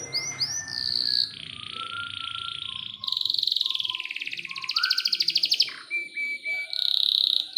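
Domestic canary singing loudly: a run of quick down-slurred notes, long held high tones, and a fast rolling trill lasting a couple of seconds from about three seconds in.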